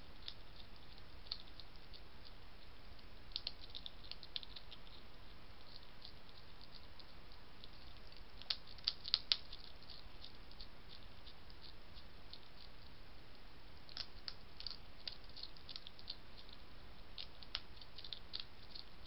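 Wild European hedgehog crunching dry food from a dish: irregular small crunches and clicks, loudest in a quick cluster about halfway through, over a steady background hiss.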